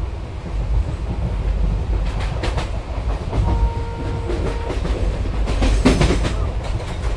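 A moving train heard from inside the carriage: a steady low rumble, with the wheels clicking and clacking over rail joints from about two seconds in. A brief steady tone sounds around the middle.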